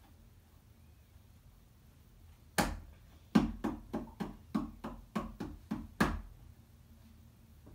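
Hands tapping on the top of a hollow plastic step stool. One knock comes first, then a quick, slightly uneven run of about ten knocks at roughly three a second.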